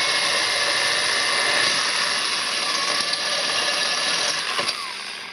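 Variable-speed electric drill running a 3/8-inch diamond bit, grinding a hole through the side of a glass bottle held under water: a steady whining grind that fades and stops near the end.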